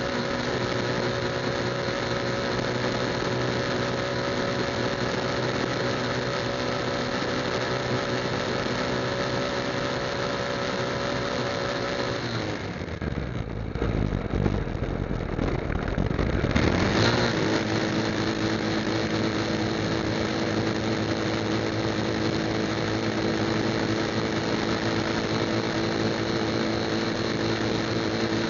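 Motorcycle engine running steadily at highway speed. About halfway through the engine note gives way to a low rumble for a few seconds. A brief rising pitch follows, and the engine settles back into a steady, lower note.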